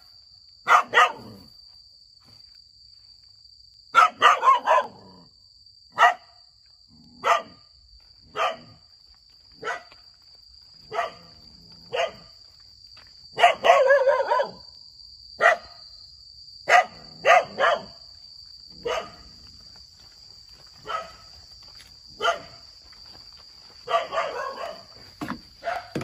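Small dog barking repeatedly: single sharp barks about once a second, with a few quick runs of barks, over a steady high-pitched whine.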